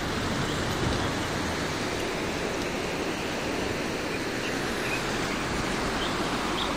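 Steady rushing noise of a muddy river in flood, running high and fast.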